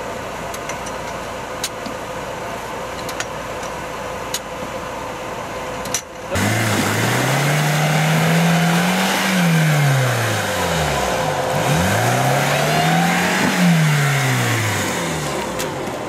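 An engine idles steadily with a few sharp clicks. Then, about six seconds in, the Bronto Rys's Lada Niva-based four-cylinder engine is revved hard twice, each rev rising and falling in pitch, as it tries to pull out of a deep mud rut with its wheels spinning.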